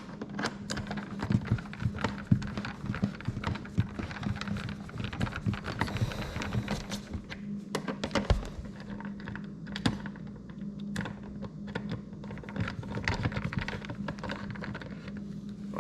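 Irregular clicks and knocks from hands working the screws and plastic housing of a Tesla Wall Connector being taken off the wall, over a steady low hum.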